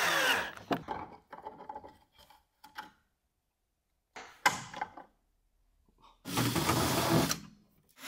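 Cordless drill-driver with a T20 bit running in two short spurts, at the very start and again about six seconds in, driving out the screws that hold a van's plastic license-plate backing. Small clicks and knocks of plastic trim and tools come between the spurts.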